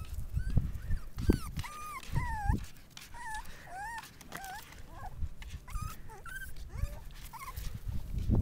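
Six-week-old Miniature Australian Shepherd puppies whimpering and whining: a string of short, high cries that rise and fall, with low thumps underneath.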